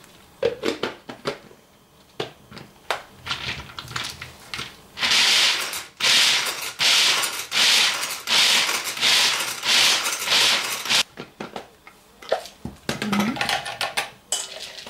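Hand-held pull-cord food chopper chopping nuts. After a few clicks of the lid being fitted, about eight quick pulls come in a row, each a loud whirring rattle of the spinning blades and nut pieces. Lighter clicks follow as the lid is handled.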